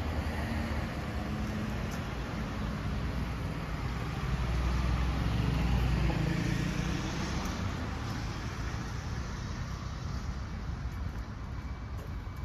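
A motor vehicle passing on the road, its low engine rumble swelling about five seconds in and then easing off.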